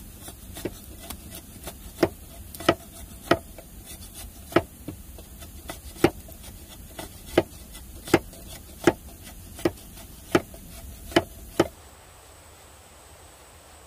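Machete blade shaving strips off a bamboo tube, a sharp crack at each stroke, the strokes coming every half second or so and stopping near the end.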